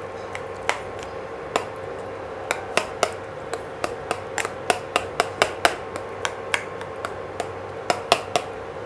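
Wooden spatula knocking against a nonstick kadai while stirring a thick vegetable curry: irregular sharp clicks, a few a second, over a steady hum.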